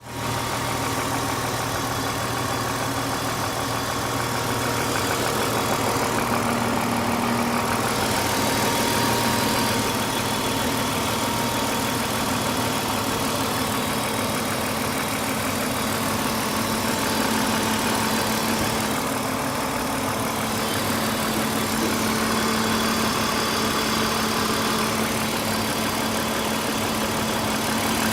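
Car engine idling steadily, with a ticking that the owner asks about as possible lifter (valve lifter) tick.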